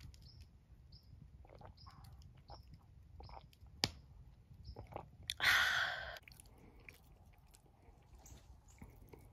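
A person sipping and swallowing a drink from a glass mug: quiet mouth clicks, a sharp click just before four seconds in, and a loud breathy rush lasting under a second about five and a half seconds in.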